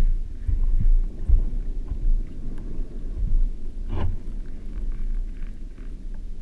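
Muffled underwater rumble of shallow-water surge moving around a waterproof camera housing, with scattered faint ticks and one sharper knock about four seconds in.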